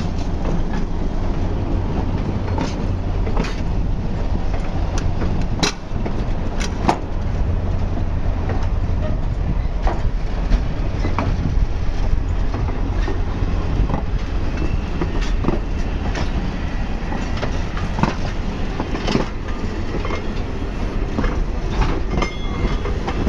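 Train of vintage cabooses and a passenger coach rolling slowly along the track: a steady low rumble with irregular clicks and clanks from the wheels on the rails.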